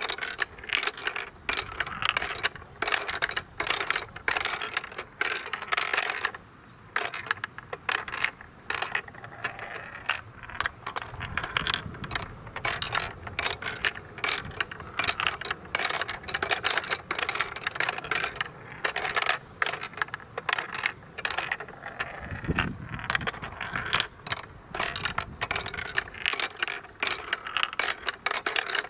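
Glass marbles clicking and rolling through a wooden marble run: a rolling ball works the step mechanism that lifts a row of marbles up one step each, giving a dense, irregular clatter of small clicks and clacks.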